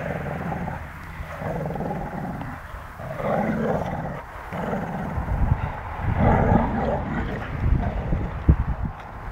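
Two dogs growling as they tussle over a ball, in several spells of growling, with a few low knocks near the end.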